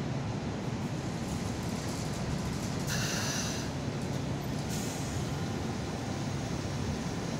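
Two-car Hong Kong Light Rail train, Phase I light rail vehicle 1001 leading, running into the stop and slowing with a steady low rumble. A short burst of high-pitched brake noise comes about three seconds in, and a briefer one near five seconds.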